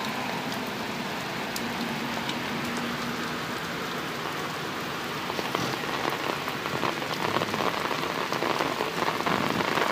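Heavy rain pouring steadily onto wet pavement and standing water. It grows a little louder, with more separate drop hits, from about halfway through.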